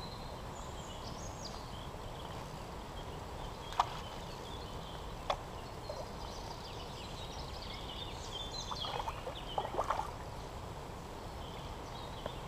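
Faint bird calls over a steady low background hiss, with two sharp clicks and, after about eight seconds, a short run of splashing from a hooked trout thrashing at the surface.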